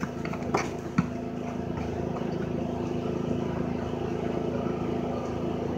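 A basketball bouncing twice on pavement, about half a second and a second in. Underneath is a steady low hum that grows slightly louder after about two seconds.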